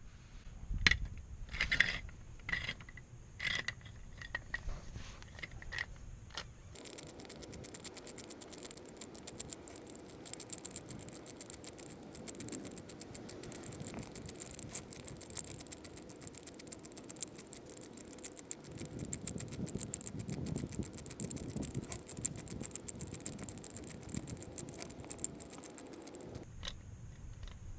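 Several sharp metal clanks and clicks from a hydraulic bottle jack being handled under the car, loudest about a second and two seconds in. Then a faint steady hiss with fine rapid ticking while the jack's release knob is turned to lower it.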